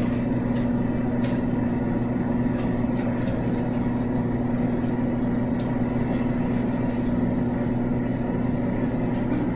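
Steady electrical hum of the refrigerated vending machines running, with a few light clicks as keypad buttons are pressed.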